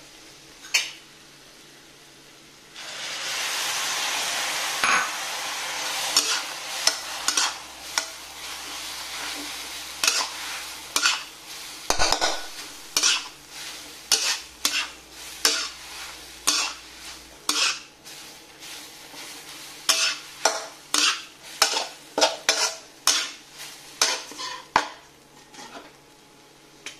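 Food frying in a pan. Sizzling starts suddenly about three seconds in and slowly dies down, while a utensil knocks and scrapes against the pan again and again as the food is stirred.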